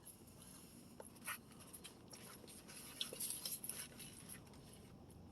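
Faint eating sounds: soft chewing and rustling, with a few light clicks around one second in and again around three seconds in.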